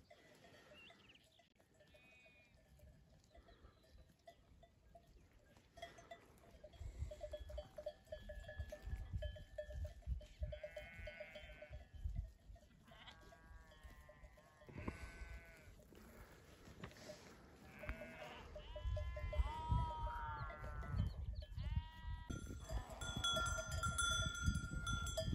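A grazing flock of sheep bleating now and then, the calls coming thicker in the second half, over a steady faint clinking of sheep bells. A low rumble of wind on the microphone comes and goes.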